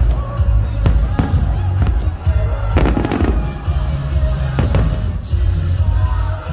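Fireworks display going off: several sharp bangs spaced a second or two apart, with music with a heavy bass playing underneath.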